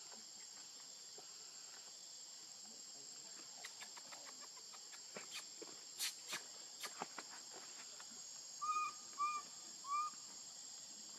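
Steady high-pitched insect chorus in forest, with a few sharp clicks in the middle and three short rising-and-falling calls near the end.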